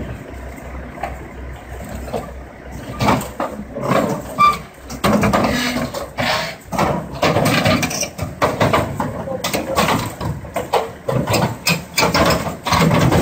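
Crawler excavator's diesel engine running low and steady as the machine climbs onto a lowboy trailer. From about three seconds in, loud irregular clatter and shouting voices break in over the engine.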